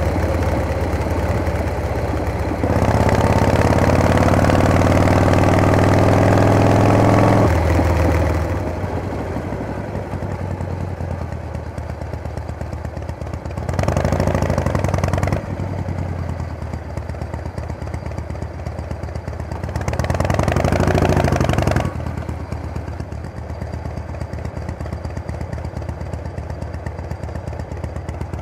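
Harley-Davidson Panhead V-twin engine running, its note rising in pitch and getting louder for a few seconds near the start, then falling back to a lower, steadier run. Two short swells that rise and fall in pitch come partway through and again a few seconds later.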